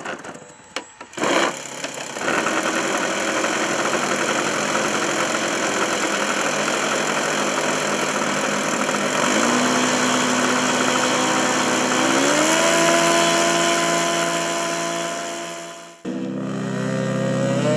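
Model aircraft's internal-combustion engine being started: a few brief cranking bursts, then it catches and runs steadily. Its pitch steps up twice as it is throttled up. The sound cuts off sharply near the end.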